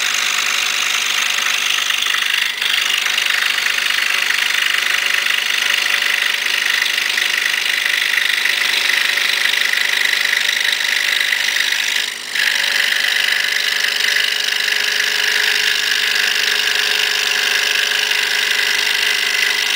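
Excalibur 21-inch scroll saw running at medium speed, its No. 5 reverse-tooth blade cutting a bevel through a wooden plaque: a steady whir over a constant hum. The sound dips briefly twice, about two and a half seconds in and again about twelve seconds in.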